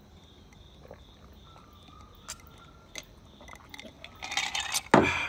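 Person chewing squid, with a few faint clicks, then near the end a louder noisy burst of about half a second followed by a sharp knock.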